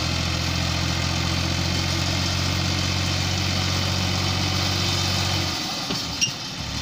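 Tractor diesel engine running steadily under heavy load, towing an overloaded trolley of straw. Its low note drops out about five and a half seconds in, with a sharp click, and then comes back.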